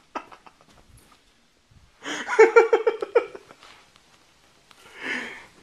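A woman's high-pitched cry about two seconds in, pulsing in quick beats like a startled scream breaking into a laugh, then a shorter vocal sound near the end. A few faint knocks come before it.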